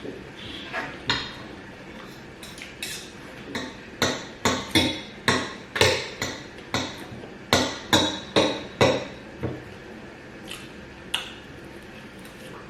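Spoon clinking and knocking against a plate while scooping food. A quick run of sharp strikes, about two a second, fills the middle, with a few single clinks before and after.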